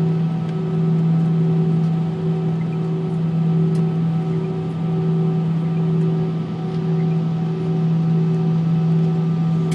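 Airbus A319 cabin noise while taxiing, heard from inside: the jet engines' steady hum at low thrust, with a strong steady low tone and a fainter higher tone that pulses on and off in a regular beat.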